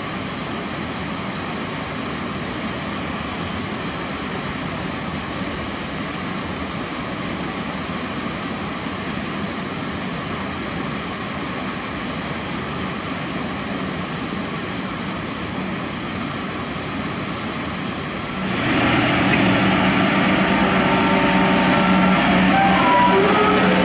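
Hydraulic excavator diesel engine running steadily under load as a Kobelco SK200 digs soil. About 18 seconds in, the sound jumps louder to a closer engine with a steady hum: a Hitachi ZX200LC long-reach excavator working.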